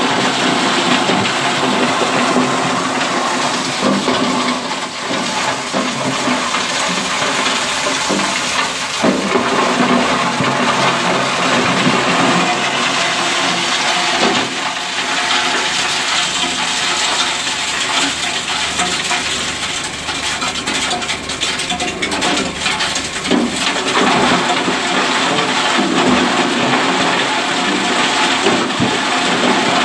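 Concrete block crusher running and breaking up blocks fed into its hopper: a steady loud rushing noise full of small clattering knocks of broken concrete.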